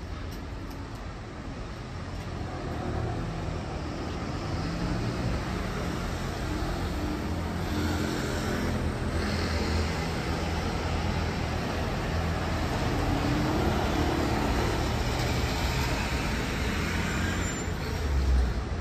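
Road traffic passing on a city street: cars, vans and motorbikes driving by with a steady engine rumble that builds a few seconds in. A brief louder low surge comes near the end.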